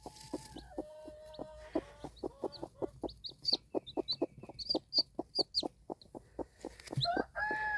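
Broody hen clucking steadily in short, rapid clucks, about four a second, with a chick's high peeps between the clucks in the middle.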